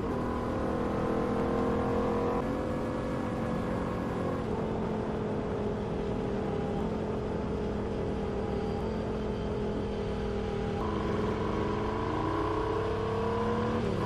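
Royal Enfield Continental GT motorcycle engine running under way, heard from the rider's seat. Its note drops in two steps in the first few seconds and sags slowly, then dips and climbs steadily over the last three seconds as the bike accelerates.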